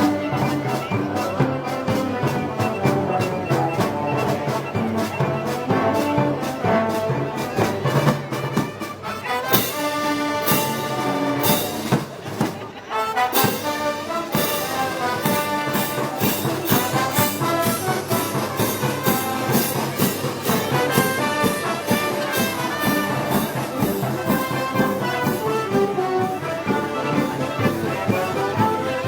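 Brass band music with trumpets, trombones and a steady drum beat, typical of a Moros y Cristianos festival band, briefly dropping in loudness about halfway through.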